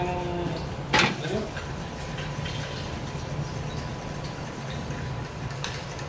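Stainless-steel mixing bowls being handled on a steel counter, with one sharp metallic clank about a second in and a few faint clinks after it, over a steady low background hum.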